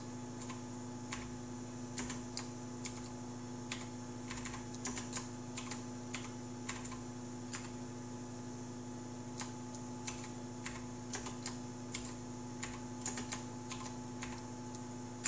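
Computer keyboard typing: irregular key clicks, some in quick runs, over a steady hum with a few constant tones.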